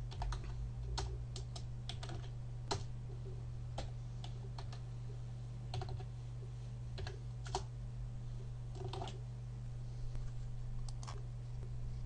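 Computer keyboard being typed on: irregular key clicks coming a few at a time with short pauses between, over a steady low electrical hum.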